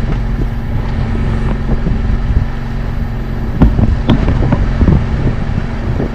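Fishing boat's engine running steadily, with wind buffeting the microphone and a few short knocks about halfway through.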